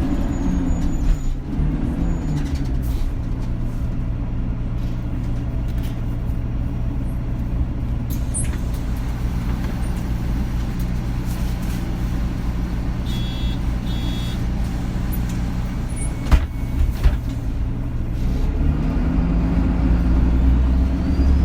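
Bus engine and road rumble heard from inside the cabin. The engine note drops in the first couple of seconds, holds steady, then rises near the end as the bus speeds up. Two short high beeps come about two-thirds of the way in, followed by a couple of sharp knocks.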